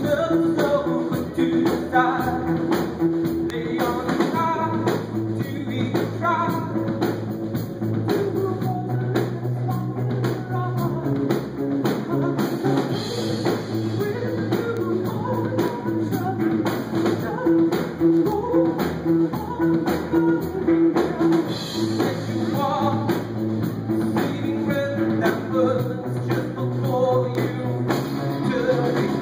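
Live indie pop band playing a song: drum kit keeping a steady beat, guitar and a singing voice.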